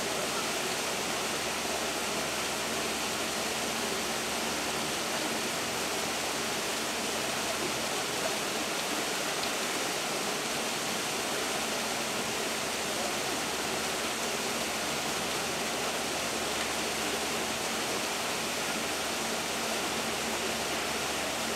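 Steady rushing noise, even and unbroken.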